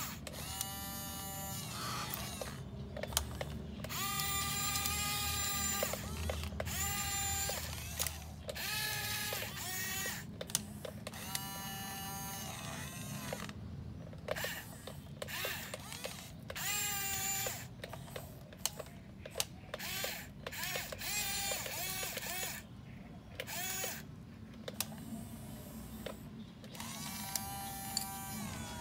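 Small electric gear motors of a Yigong remote-control toy excavator whining in repeated bursts of one to two seconds, with short pauses between, as its boom, arm and cab are driven.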